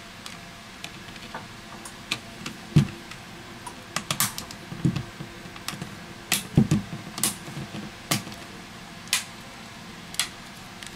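Back cover of an LG X Power 2 phone being pressed onto its frame by hand: scattered sharp clicks, about a dozen, as its clips snap into place.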